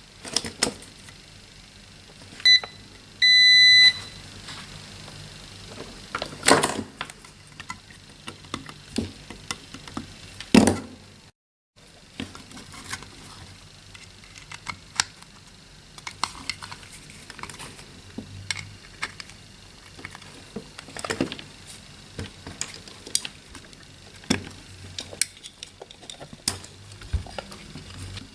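Two electronic beeps about three seconds in, a short one and then a longer one at the same pitch. Scattered clicks and knocks of handling run before and after them.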